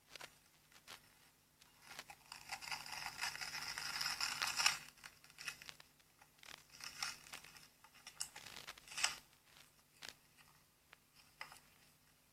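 Slime being squeezed and stretched by hand. It crackles steadily for a few seconds, then gives scattered sticky clicks and pops.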